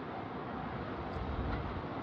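Freight train approaching over the level crossing, a low rumble building up from about a second in over a steady wash of noise.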